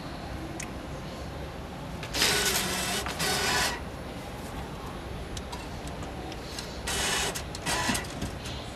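Banknote acceptor of a cash-only subway ticket vending machine drawing in a 50,000-won bill: its feed mechanism runs for about a second and a half starting about two seconds in, then runs twice more briefly near the end as the note is taken in.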